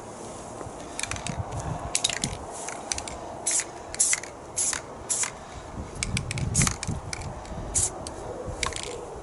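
Aerosol spray paint can hissing in a dozen or so short, quick bursts, dusting paint onto the edges of a trailer board to make it look weathered.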